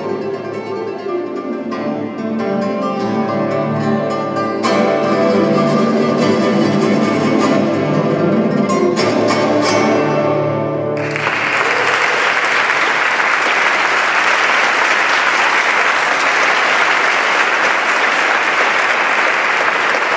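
Solo nylon-string classical guitar playing the closing bars of a piece, finishing with strummed chords, then audience applause from about eleven seconds in.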